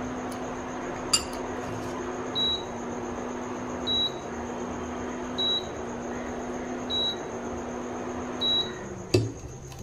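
Induction cooktop humming steadily, with short high beeps about every second and a half and its hum dropping out briefly at each beep: the warning an induction hob gives when the pan is lifted off the glass top. A knock near the end as the frying pan is set back down.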